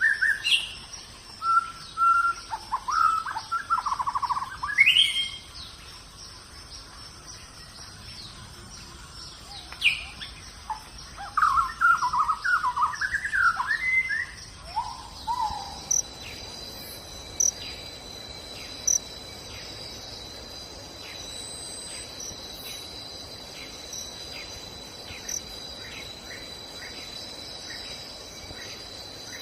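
Songbirds chirping and singing in varied phrases during the first half. About halfway through, a steady high-pitched insect drone with regular ticks, like crickets, takes over.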